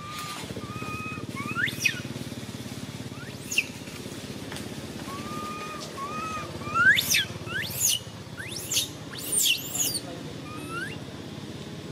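A series of high, thin animal calls: short level whistled notes in pairs and quick upward-sweeping cries, coming faster and louder between about six and ten seconds in, over a low steady rumble.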